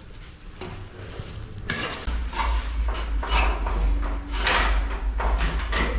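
Clattering and knocking of hard objects being handled, four or five separate clanks, with a steady low rumble starting about two seconds in.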